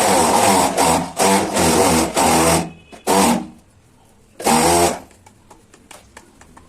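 Electric power tool motor run in three bursts: one of about two and a half seconds, then two short blips.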